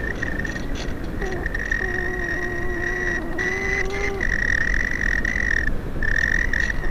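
Onboard audio from a Parkzone Radian electric RC glider in flight: wind rushing over the camera microphone with a steady high whine from the electric motor. A lower hum comes in about a second in, wavers, and fades out a little after four seconds.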